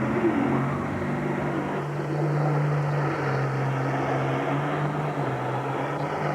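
Diesel farm tractor engine at a tractor pull, running steadily at a nearly constant pitch.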